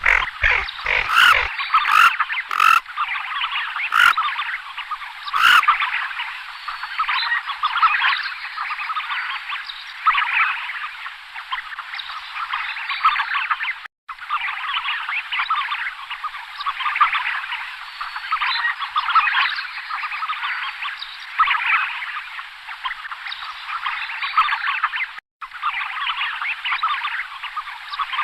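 A dense chorus of many short animal calls, overlapping without pause, broken by two brief cuts about halfway and near the end. A few sharp clicks sound in the first few seconds.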